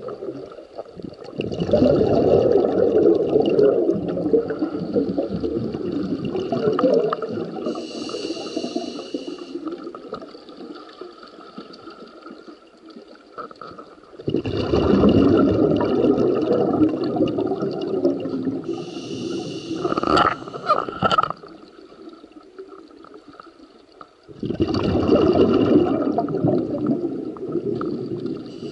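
Scuba diver breathing through a regulator, heard underwater: three long bouts of bubbling exhaled air, with short hissing inhalations between them.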